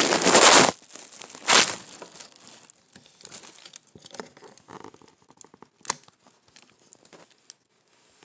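A loud rubbing rush as the phone is handled against its microphone, cutting off under a second in, then faint crinkling of the plastic packet and cardboard box of vanilla wafer cookies being moved, with a few sharp clicks.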